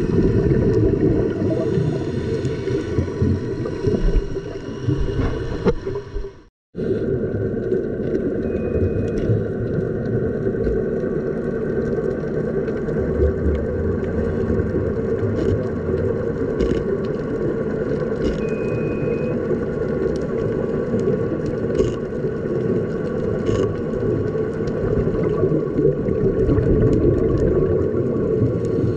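Underwater ambience picked up through a GoPro's waterproof housing: a steady low rumble and wash with a faint hum of steady tones above it. It breaks off for an instant about six and a half seconds in.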